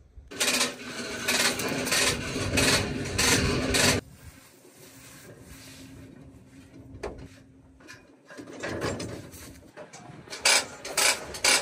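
Loud rubbing and scraping for the first few seconds, then a quieter stretch with a faint steady hum. Rustling and scraping pick up again near the end as a diesel fuel hose is pulled across dry corn stubble.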